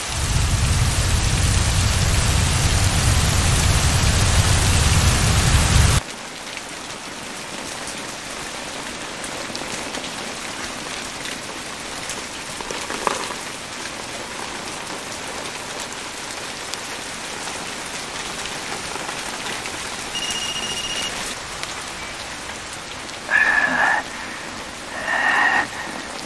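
Heavy rain pouring, with a deep rumble under it for the first six seconds; it then cuts sharply to steadier, lighter rain. A short high beep comes about twenty seconds in, and two brief louder sounds near the end.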